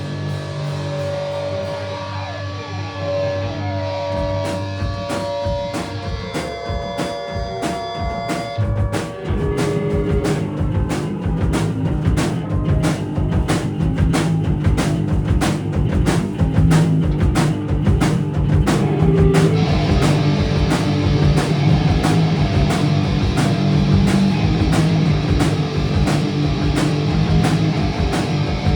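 Live punk band playing an instrumental passage with electric guitar, bass and drum kit. For about the first nine seconds held guitar notes carry the music over a light beat, then the full band comes in louder with fast, driving drums.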